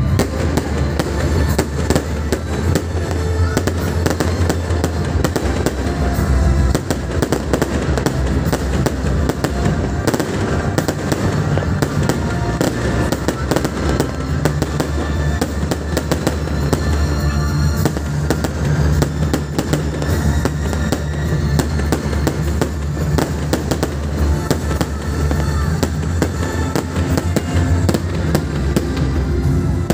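Professional display fireworks: aerial shells bursting and crackling in dense, rapid succession, with music playing underneath.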